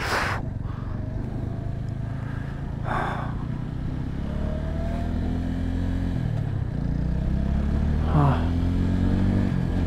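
Motorcycle engine running under way, its note climbing as the rider accelerates, dipping briefly at a gear change near the middle and climbing again. Two short rushes of noise come at the start and about three seconds in.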